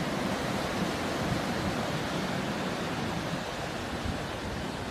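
Ocean surf breaking and washing on a beach: a steady rushing noise that eases slightly near the end.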